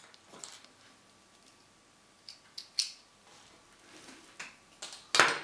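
Hand-sewing with needle and thread through a small cotton bow tie: a few faint ticks and brief rasps of thread being drawn through the fabric, then a louder half-second rasp near the end.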